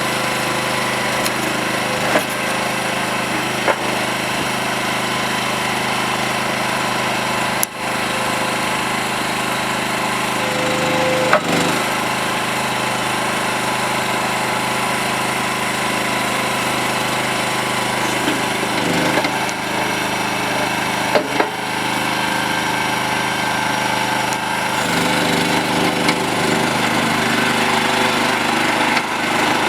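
Engine of a new EG360 mini skid steer loader running steadily, with a few short clanks. It gets a little louder and changes tone from about 25 seconds in.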